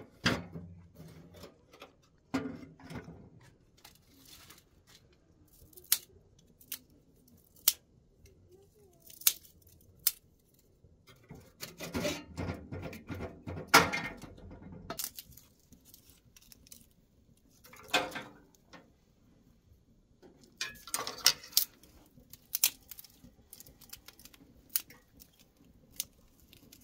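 Intermittent metal clinks, knocks and clatter as a large aluminium water-heating urn and a small metal cup are handled, in scattered single clicks with a few longer bouts of clattering.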